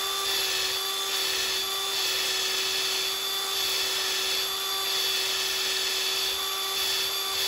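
Electric drill running at a steady speed, spinning a sump bolt clamped in its chuck against a wire brush to scour old sealant out of the threads. Its motor whine holds one pitch over a scraping hiss.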